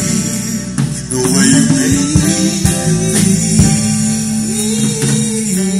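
Loud band music played through a stage PA sound system: a voice singing over drums and other instruments.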